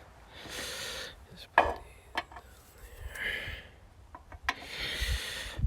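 Handling noises: a few light clicks and knocks, the sharpest about a second and a half in, with soft rubbing and rustling in between.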